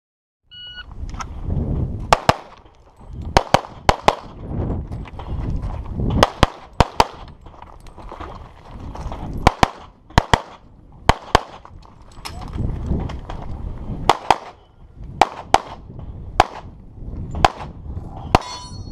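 Pistol shots in a practical shooting stage, about twenty in all, mostly fired in quick pairs with short pauses between strings. Some shots are followed by a metallic clang of steel targets being hit. A short high beep sounds just before the first shots, and a low rumble fills the gaps between shots.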